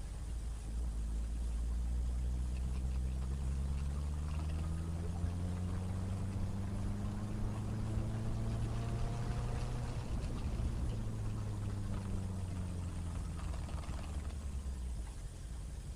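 Benelli BN600i inline-four motorcycle engine under way. Its pitch climbs slowly for about ten seconds as it accelerates, then falls as it eases off, under a steady rush of wind on the microphone.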